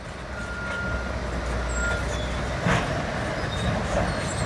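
Heavy diesel earthmoving machinery running with a steady low rumble that grows louder over the first second. Two short high squeals and a brief clank are heard partway through.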